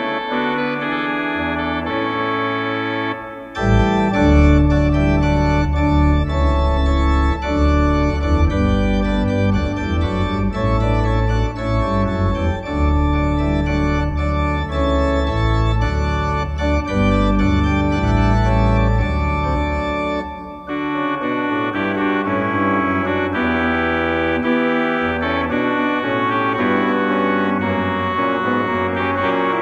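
Organ playing sustained chords. About three seconds in it swells louder with deep bass notes, then drops back to a softer registration at about twenty seconds.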